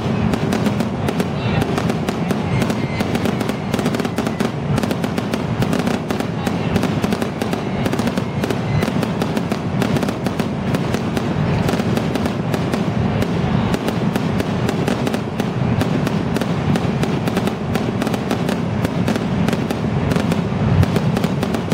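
Fireworks going off overhead in a dense, continuous barrage of rapid bangs and crackles, with a louder burst near the end.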